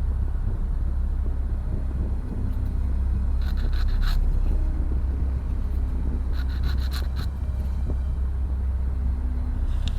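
Small wooden model-kit parts being handled while they are stained walnut: two short runs of light clicking and rubbing, about four seconds in and again about seven seconds in. A steady low hum runs underneath.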